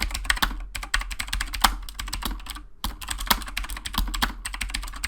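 Fast typing on a Razer computer keyboard: a rapid run of key clicks, broken by a couple of brief pauses.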